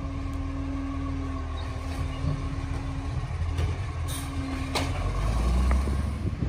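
Side-loader garbage truck running slowly, its engine giving a steady low rumble with a steady whine over it, and a few sharp clanks from about three and a half to five seconds in.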